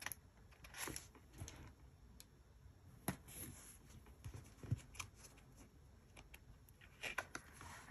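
Faint, scattered small taps and rustles of paper: sticker sheets and planner pages being handled on a table, with a few clicks of tweezers, a little busier near the end.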